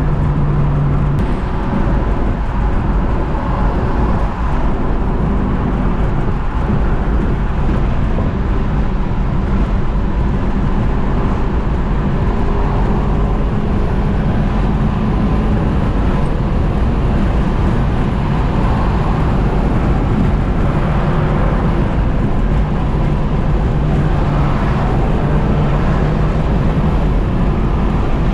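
A car driving: a steady engine drone under road noise, with the engine note shifting a little as the speed changes.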